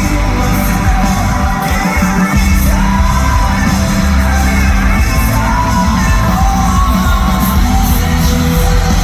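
Rock band playing live, loud and continuous, with a singer holding long sung notes over a heavy bass and drum low end.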